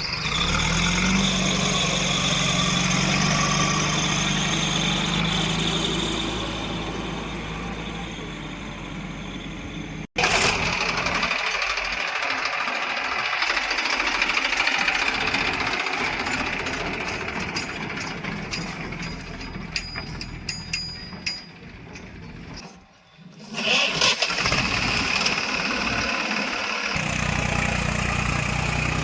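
Heavy diesel engines of tractors or a backhoe loader running at work, steady and loud. The sound breaks off sharply about ten seconds in and dips again near the end of the middle stretch, each time picking up again straight away.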